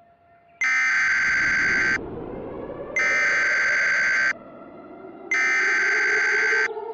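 Emergency Alert System SAME header: three harsh, buzzy data bursts about a second and a half long, with about a second's gap between them. This is the digital code that opens an alert broadcast. Underneath runs a low drone that slowly rises in pitch.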